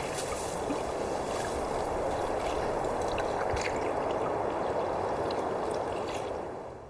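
Steady ambience of lake water gently lapping and flowing, fading out in the last half second.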